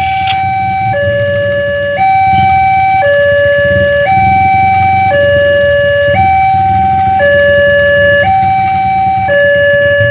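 Railway level-crossing warning alarm sounding: an electronic two-tone signal alternating steadily between a higher and a lower tone about once a second, over a low rumble of engines. It signals that a train is approaching and the crossing is closing.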